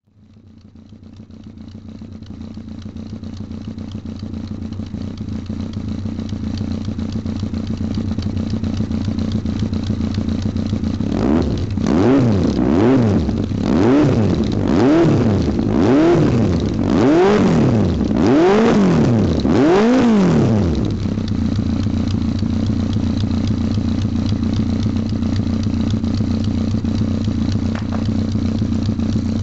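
2005 Yamaha XJR1300's inline-four idling through an OVER aftermarket muffler, fading in over the first few seconds. About eleven seconds in, the throttle is blipped about once a second for some ten seconds, each rev rising and falling, before the engine settles back to a steady idle.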